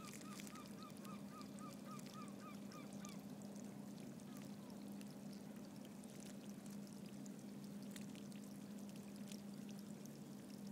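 Small geothermal vents in wet ground bubbling and crackling, with scattered small pops. A bird calls a quick run of about a dozen short notes over the first three seconds, then twice more.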